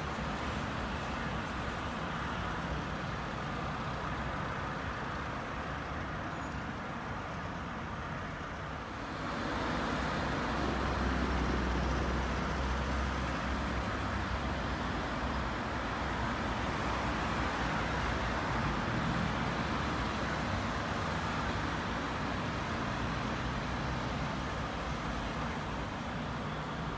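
City street traffic ambience: a steady wash of passing cars. It grows louder about a third of the way in, with a low rumble for a few seconds, then carries on at that higher level.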